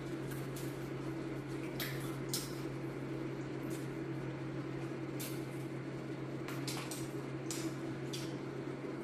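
A person chewing and picking apart crispy fried chicken, with short crackles from the crunchy coating scattered through, over a steady low hum.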